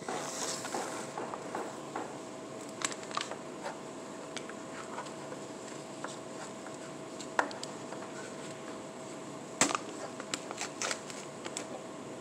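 A Pringles can being handled and opened: scattered clicks and crinkles from the cardboard tube, the plastic lid and the foil seal, with a few sharper clicks. A steady hum sits underneath.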